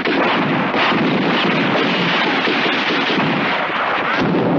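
Film battle sound effects: a loud, unbroken barrage of gunfire mixed with explosions.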